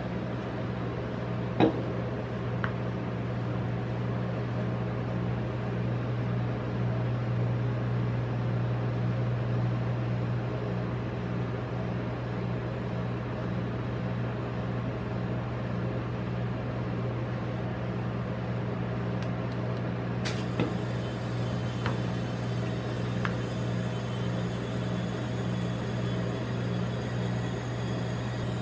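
Steady low electrical hum of a rolled-ice-cream machine's refrigerated cold plate running, with a sharp knock about a second and a half in and a few light taps later on.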